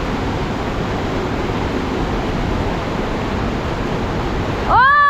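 Steady rushing of a mountain river's water. Near the end it cuts off abruptly and a loud, held, high pitched sound starts.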